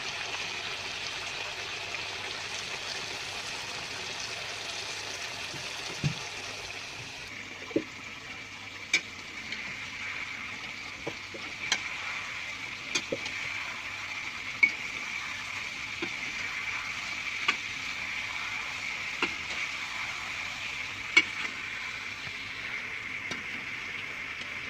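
Chicken frying in hot oil in a pan with a steady sizzle, and short sharp clicks of a utensil against the pan every second or two.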